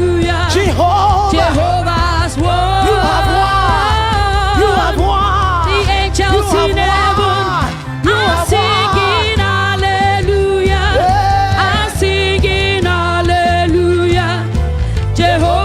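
Live gospel praise music: voices singing with sliding, wavering melodic runs over a steady bass accompaniment, with a brief dip in level just before the middle.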